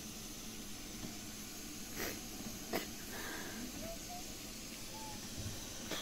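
Faint steady hiss, with two short knocks about two seconds in, the second under a second after the first, and a few faint brief tones near the middle.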